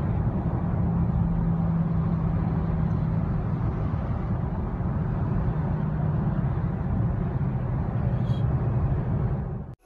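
Steady engine and road noise of a car travelling at highway speed, with a low hum underneath; it cuts off suddenly near the end.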